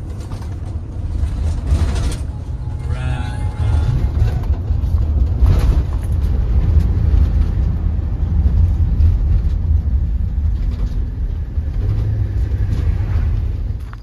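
Steady low rumble of a vehicle on the move, heard from inside the cab: engine and tyre noise on the road.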